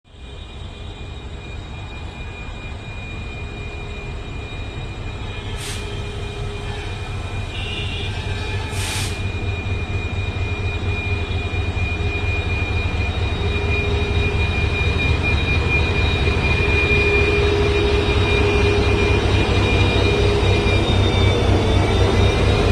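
WDP4D diesel-electric locomotive humming, a steady low engine drone with a thin high whine over it, growing steadily louder. Two short hisses cut in about six and nine seconds in.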